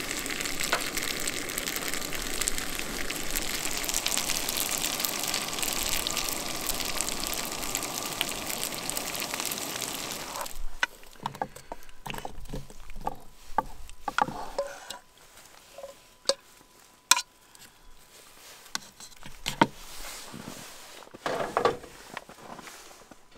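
Pasta and broccoli sizzling in a frying pan on a camp stove, a steady hiss. About ten seconds in it gives way to a spoon scraping the pan and food dropping into a bowl, with scattered clinks and taps.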